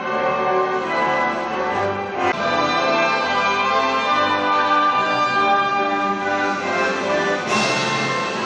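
Orchestra with brass playing a national anthem in sustained chords, swelling near the end.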